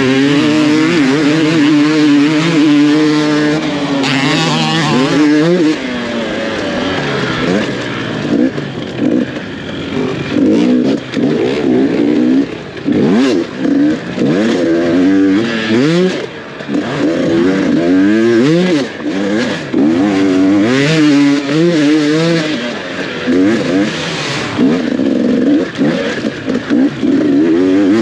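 Enduro dirt bike engine revving hard and constantly, its pitch rising and falling every second or so as the throttle is worked on and off, with brief drops in loudness when the throttle is shut.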